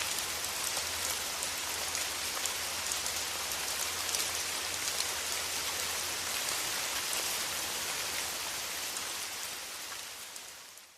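Steady rain falling, with individual drops ticking clearly above the hiss. It fades out near the end.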